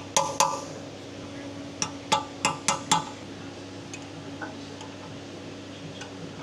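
Metal-on-metal clinks from working on small steel gearbox parts: three sharp ringing clinks at the start, then five more in quick succession around two to three seconds in.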